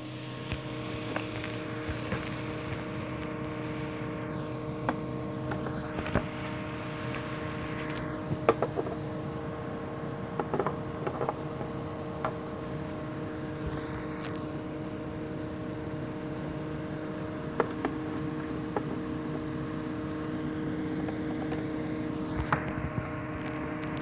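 Steady electrical hum of a homemade air-conditioner unit: several held tones over a low whir, with scattered clicks and taps as its parts are handled.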